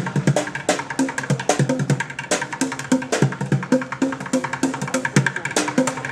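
Street drumming on upturned plastic buckets: a fast, dense rhythm of sharp cracking hits over deeper hollow thuds.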